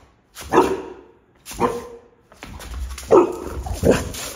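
Boxer dog barking in play, about four short barks spread across a few seconds.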